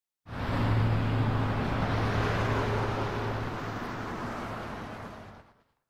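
Steady street traffic noise with a low engine hum. It comes in just after the start and slowly fades away near the end.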